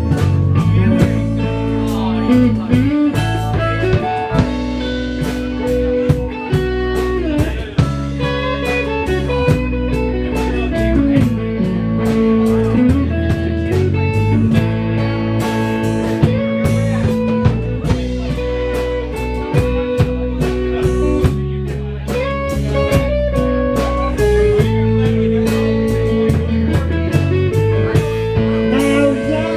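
Live blues-rock band playing an instrumental passage: electric guitar with bent notes over a drum kit.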